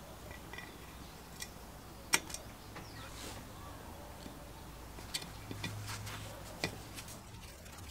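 Flat-blade screwdriver turning the small screws that hold the compressor's head cover: a few scattered sharp metal clicks and ticks as the blade seats in the screw slots, the loudest about two seconds in.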